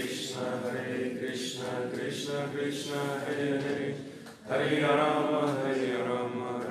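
A man chanting devotional prayers into a microphone in a steady sing-song recitation with long held notes. He breaks off briefly for breath about four and a half seconds in.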